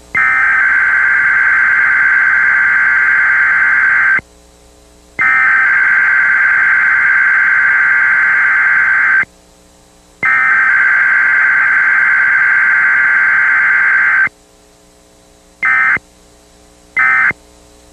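Emergency alert alarm: three loud, long high-pitched tones of about four seconds each, separated by short gaps, followed near the end by two short beeps.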